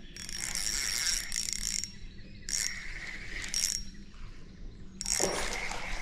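Fishing reel being cranked in several spurts, its gears whirring as line is reeled in: one long spell at the start, two short turns in the middle and another near the end.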